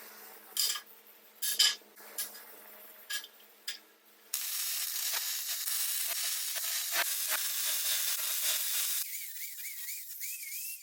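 A few sharp metal clinks, then about five seconds of steady crackling welding-arc sizzle that cuts off abruptly. A faint wavering tone follows near the end.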